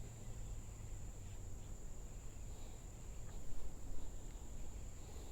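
Insects, tagged as crickets, keep up a steady high-pitched drone, over a low rumble that swells briefly about three and a half seconds in.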